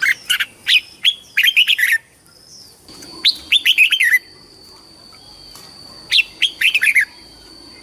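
Red-whiskered bulbul singing: three short phrases of quick, warbling whistled notes, each about a second long, with pauses between. A thin, steady high-pitched tone runs faintly behind the later phrases.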